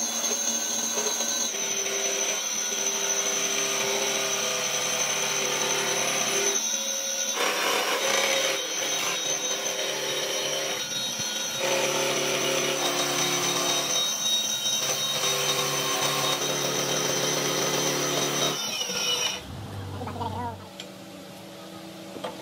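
Vertical milling machine cutting a steel block in the vise, with a steady high whine over the cutting noise and a couple of brief breaks. The cutting stops about nineteen seconds in, leaving only quieter shop sounds.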